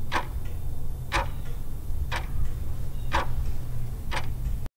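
Clock-tick countdown sound effect: five sharp ticks, one each second, over a steady low hum, cutting off near the end.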